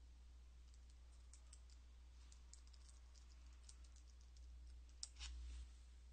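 Faint computer keyboard typing: quick light key clicks for about four seconds, then a louder single click and a short low thump about five seconds in.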